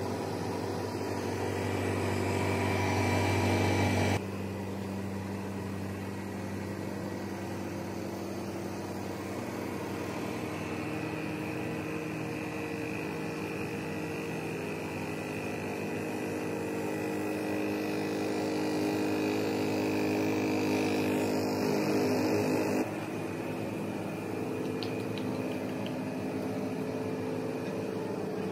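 Steady mechanical hum of food-truck generators and motors running, several steady tones sounding at once. The hum drops suddenly about four seconds in and again about three quarters of the way through.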